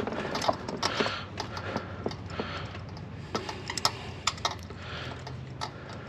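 Light, irregular metallic clicks from a socket wrench turning a loosened spark plug out of the engine, several a second with short pauses.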